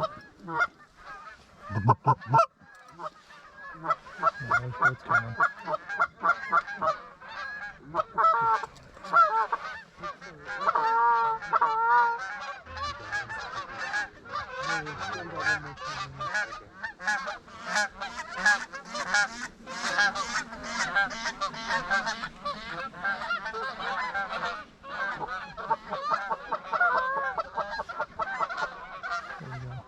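A flock of Canada geese honking, many short calls overlapping in quick succession and growing denser past the middle.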